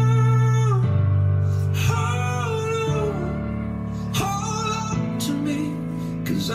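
Music playing: a song with a sung melody over guitar and a steady bass.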